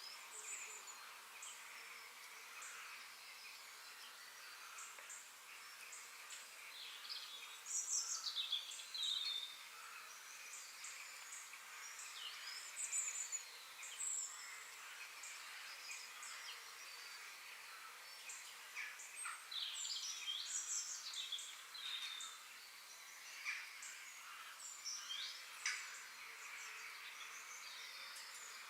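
Forest ambience: several small birds chirping and twittering in short, quick calls over a steady high background hiss of distant birds and insects. The calls come in clusters, busiest about a third of the way in and again in the last third.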